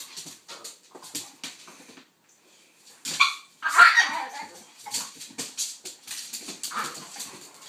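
A pitbull and a King Charles spaniel playing, with dog barks and many short clicks; the two loudest barks come about three and four seconds in, after a brief quiet gap.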